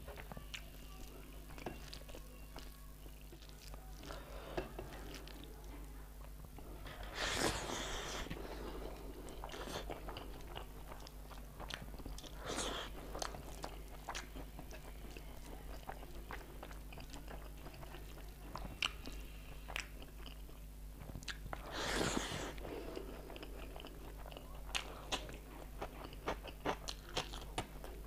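Close-miked eating sounds from a meal of rice and egg curry eaten by hand: chewing and wet mouth smacks among many small clicks, with fingers squelching rice and curry together in a metal plate. Two louder, longer rushes of noise stand out about seven and twenty-two seconds in.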